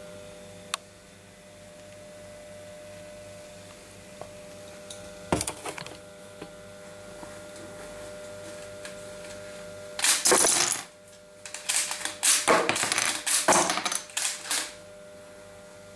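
Loose Lego bricks clattering onto a wooden tabletop as a brick target is knocked apart. A loud burst about ten seconds in is followed by several seconds of rattling impacts, with a couple of short sharp clicks earlier on.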